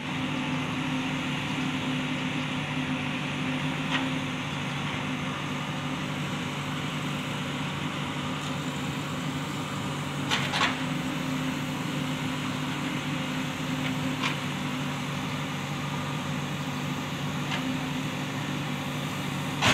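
JCB backhoe loader's diesel engine running steadily with a low, even hum, with a few short knocks spaced a few seconds apart.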